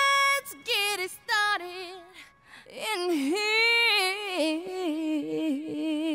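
A solo singing voice with almost no accompaniment: a held note, a few short notes, a brief pause about two seconds in, then a long wavering phrase.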